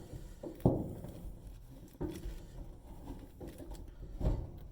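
Flathead screwdriver tightening the clamp on a dryer vent hose: soft scraping and handling noise with a few sharp clicks, the loudest near the end.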